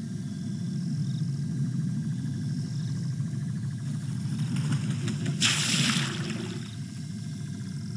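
Night-time outdoor ambience: a steady low hum with faint, high, repeated chirps, and a brief burst of hissing noise about five and a half seconds in.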